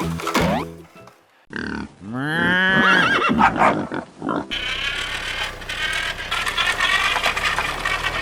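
A horse whinnying about two seconds in, its pitch rising and falling, then background music playing on.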